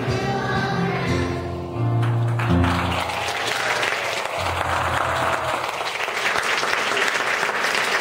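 Children's choir singing with keyboard accompaniment, ending on its final chords about three seconds in, followed by audience applause.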